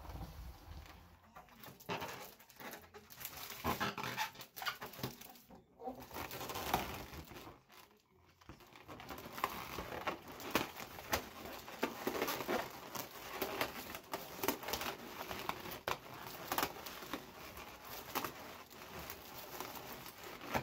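Latex and foil balloons being handled and adjusted: irregular rustling, crinkling and rubbing with small clicks.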